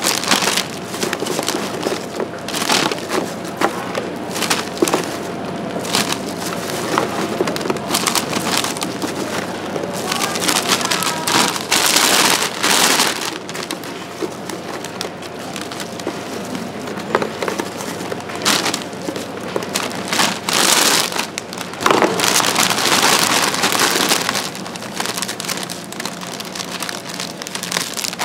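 Dense crunching and crackling of oranda, crisp puffed grain bound with syrup, being worked, with louder stretches about twelve seconds in and from about twenty to twenty-four seconds.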